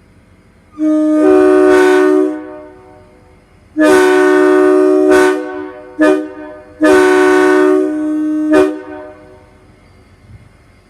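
Locomotive air horn sounding a chord in the grade-crossing pattern: two long blasts, a short one, then a final long blast that ends with a quick extra toot.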